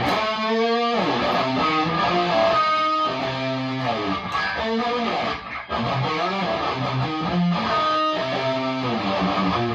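Chibson Les Paul Custom electric guitar through a Marshall DSL40 combo amp with an MXR EVH 5150 overdrive pedal: distorted riffing with a bend at the start and held notes, plus feedback that the amp's noise gate, turned up, doesn't fully cut.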